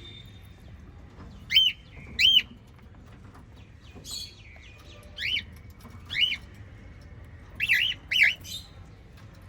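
Pet parrots chirping: about six short, sharp calls, each rising and then falling in pitch, some coming in quick pairs, with a fainter call in between.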